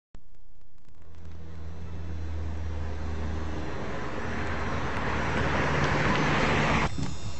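Motor vehicle noise that grows steadily louder over a low steady hum, then cuts off abruptly about seven seconds in.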